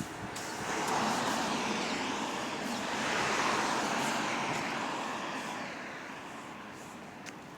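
Road and tyre noise from an electric bus on the move, a rushing sound that swells twice and then fades.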